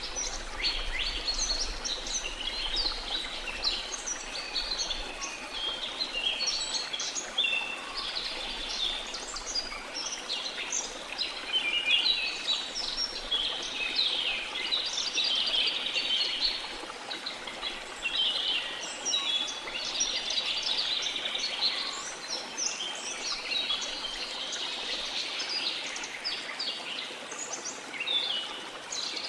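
Many small birds chirping and twittering all the way through, over a steady wash of sea waves.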